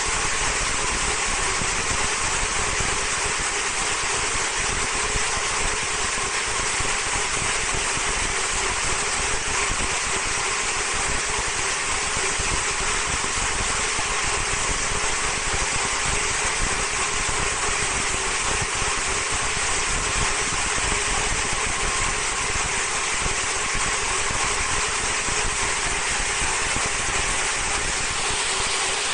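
Vertical high-speed film slitting and rewinding machine running steadily: a constant whir with a few faint held tones in it.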